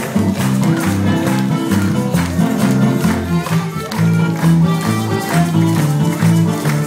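Live Mexican popular music: an accordion holding sustained chords over strummed guitars, with tambourines shaken and struck on a steady beat.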